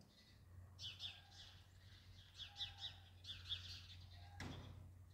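Faint chirping of small songbirds: several quick runs of short, high, falling chirps. Over a steady low hum, with a single knock about four and a half seconds in.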